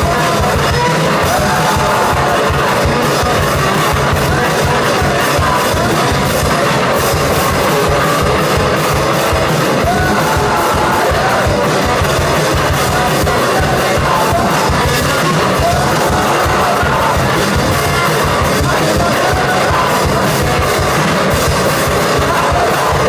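Rock band playing live: a Stratocaster-style electric guitar and a drum kit, with a man singing. Loud and continuous.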